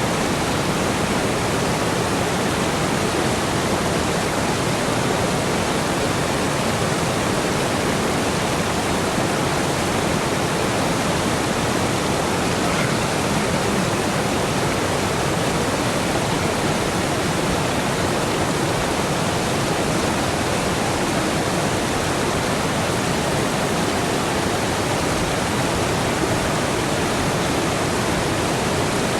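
Rushing water running steadily and evenly, with no breaks or changes.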